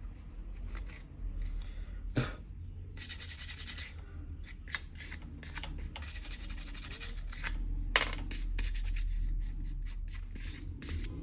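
Small hand tools working on a smartphone's parts during disassembly: scraping and rubbing on the phone, with a sharp click about two seconds in and another about eight seconds in, over a low steady hum.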